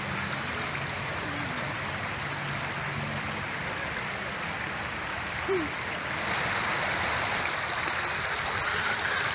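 Water running steadily along a long fountain channel, a continuous rushing hiss that grows a little louder about six seconds in.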